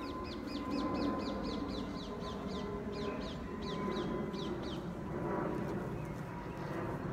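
A bird calling: a quick run of short, high notes, each falling in pitch, about four or five a second, with a brief pause near the middle. The notes stop a little before two-thirds of the way through.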